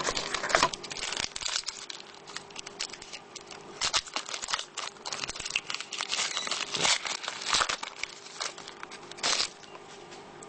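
Trading card pack wrapper crinkling and tearing as it is opened, with cards being handled: irregular crackly rustles in clusters, the busiest near the start, about four seconds in, between six and eight seconds, and around nine seconds.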